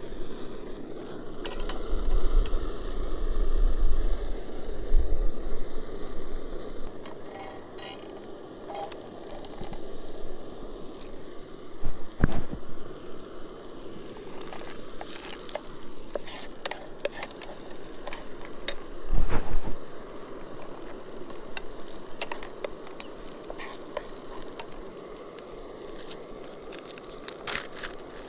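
MSR canister camp stove burner running steadily under a frying pan, with diced onions sizzling and crackling in hot oil in the second half as a wooden spatula stirs them. Two louder knocks stand out, about twelve and nineteen seconds in.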